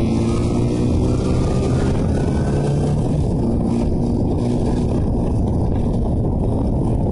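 Motorcycle engine running at a steady speed, with wind rushing over the microphone.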